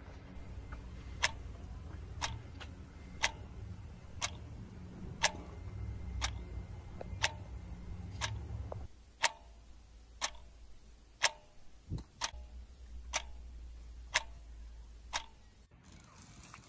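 A clock ticking, about one tick a second, over a low rumble that drops away about nine seconds in.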